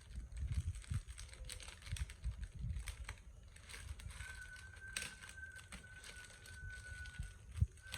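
Hands handling a parcel: crinkling packaging with many small clicks and taps and low handling bumps. A faint steady high tone comes in about halfway through.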